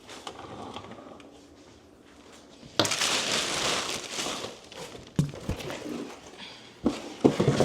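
Plastic packaging crinkling and rustling as a newly unboxed kitchen appliance is handled, starting loud about three seconds in. A few sharp knocks follow near the end.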